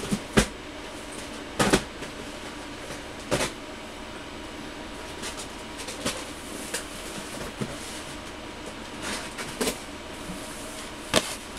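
Model-kit boxes being handled off to the side: scattered short knocks and rustles as boxes are shifted and set down, about half a dozen sharp knocks over a steady room hum.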